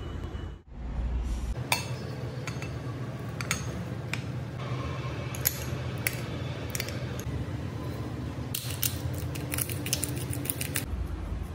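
Metal spoon clinking and scraping against bowls as mayonnaise is scooped out: single clinks about once a second, then a quick run of rapid clinks near the end.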